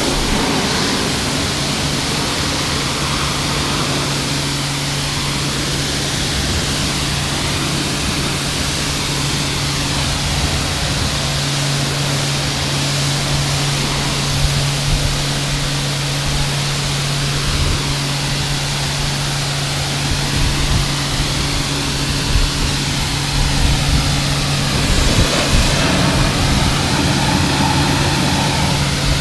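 Kärcher K4 electric pressure washer running with a constant steady hum, with the hiss of its lance spraying onto a car's bodywork.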